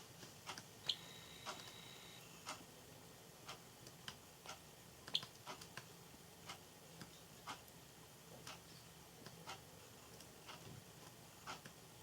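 Java sparrow pecking and nibbling at pea sprouts: faint, irregular small clicks of its beak, one or two a second, with two sharper ones about one and five seconds in.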